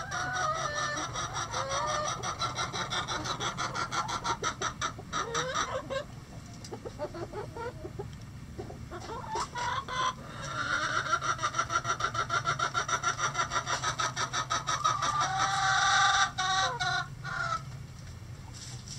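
Backyard chickens clucking in two long bouts of rapid, pulsing calls, the second bout louder and stopping about three-quarters of the way through.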